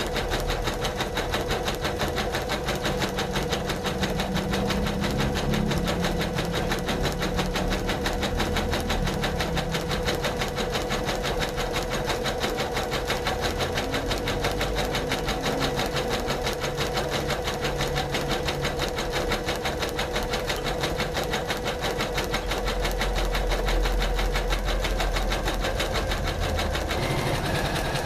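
Janome MC500E computerized embroidery machine stitching steadily with a fast, even rhythm of needle strokes.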